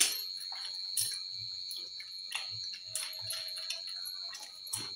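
Eating by hand from a steel plate: scattered clinks and scrapes of fingers and a spoon against the steel, the sharpest at the start and about a second in, with some chewing. A steady high-pitched tone runs underneath.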